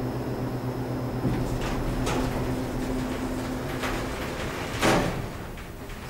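Otis elevator machinery humming steadily, then the hum stops about four seconds in as the car comes to rest. Several clicks fall before it, and a loud clunk comes about a second later, with door-like sliding sounds around it.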